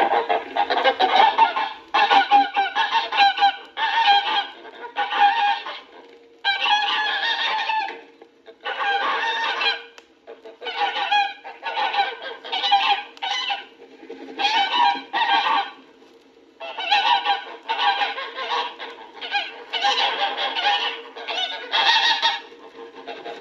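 A flock of geese cackling in repeated noisy bouts of calls with short pauses between, over a faint steady hum.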